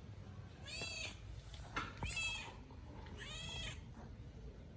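A cat meowing three times, about a second apart. Each meow is a short, high-pitched call that rises and falls.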